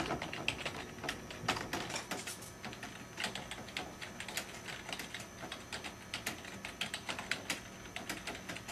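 Typing on a computer keyboard: a quick, irregular clatter of key clicks that thins out near the end.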